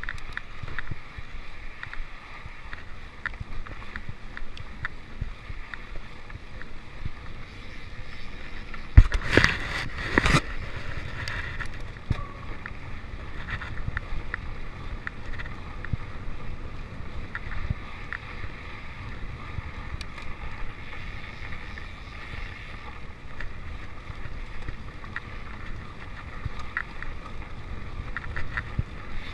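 Mountain bike riding a dirt singletrack trail: steady wind buffeting the microphone, with the bike rattling and clicking over the rough ground. Two hard knocks come about nine and ten seconds in.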